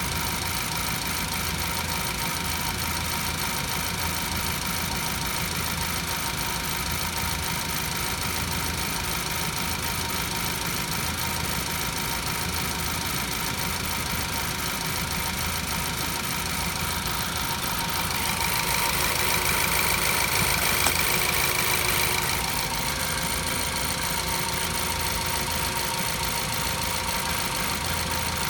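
2014 Ford Focus engine idling steadily. About two-thirds of the way through, a louder, hiss-like rise lasts about four seconds.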